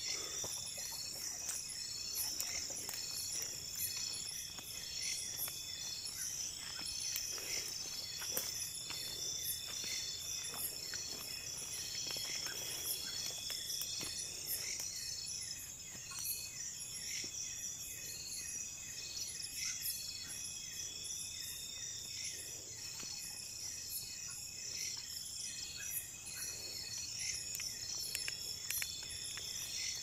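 Chorus of crickets and other night insects: a steady, high shrill with an even pulsing beat, and faint rustles and knocks at times.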